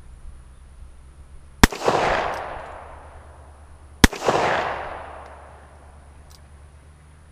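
Two shots from a Rock Island Armory M200 .38 Special revolver, about two and a half seconds apart, each a sharp crack followed by a long echo that dies away over a second or more.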